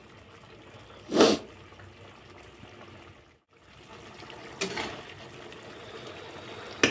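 Steel spatula stirring thin, freshly watered gravy in an aluminium kadai, with wet stirring sounds over a low steady background. There is a short loud rush of noise about a second in, and a smaller one past the middle.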